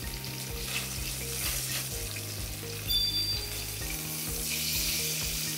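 Flour-dusted blocks of silken tofu sizzling in olive oil in a frying pan. There is a brief knock about three seconds in, and the sizzle grows louder in the last second or so as the blocks are turned with a turner.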